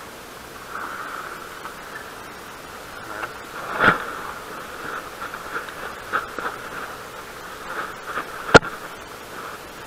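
Light water sloshing over a steady outdoor hiss, broken by two sharp knocks: one about four seconds in and a louder one about eight and a half seconds in, from hands handling the gear close to the microphone.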